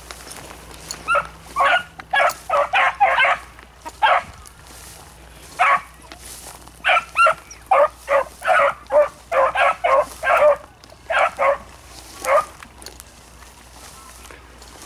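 Hunting beagles giving tongue while running a scent line: two runs of quick barks, one in the first few seconds and a longer one in the middle, that stop a couple of seconds before the end.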